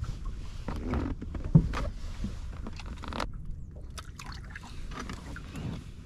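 Knocks and scrapes on the deck of a bass boat as the livewell hatch is opened and a largemouth bass is lifted out, with the loudest knock about a second and a half in.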